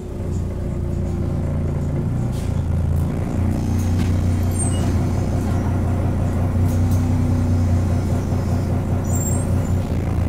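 Heuliez GX127 city bus's diesel engine running under way, a steady low drone heard from on board, with a few short high squeaks and rattles.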